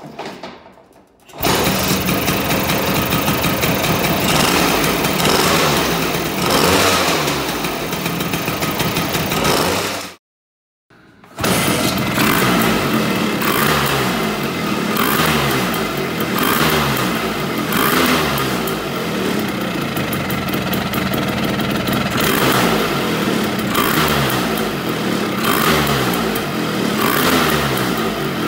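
Freshly built Pinasco 225cc two-stroke engine of a Vespa P200E kick-started for the first time, catching about a second and a half in and running loud. After a short break it runs on, revved in short blips about every two seconds.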